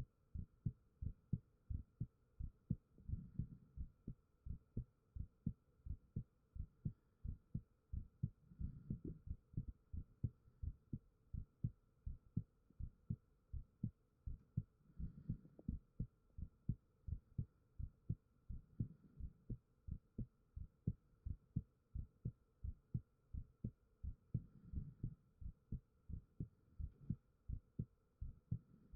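A human heartbeat recorded close up, steady low thumps a little over one beat a second, each beat a soft double thud.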